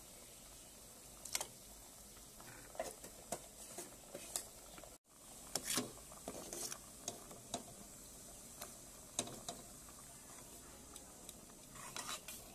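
A metal ladle scraping and tapping against a perforated aluminium strainer as curry paste is pressed through it into the pot: irregular clicks and short scrapes of metal on metal. The sound drops out briefly about five seconds in.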